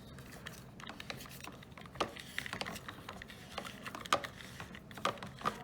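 Irregular light plastic clicks and taps from handling the Dyson Ball Animal 2's post-filter cover on the ball, twisted into place until it locks. A few sharper clicks stand out about 2, 4 and 5 seconds in.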